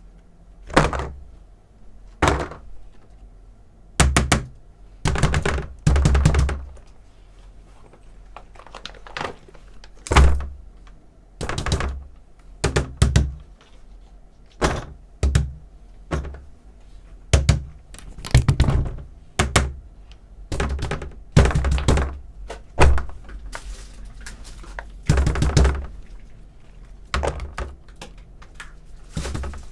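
Silicone pop-it fidget toys being pressed and handled: irregular soft thunks and pops, some single and some in quick runs of several.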